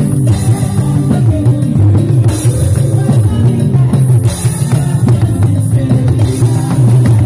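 Live band music with a strong bass line and drums, with a talking drum played under the arm with a curved stick.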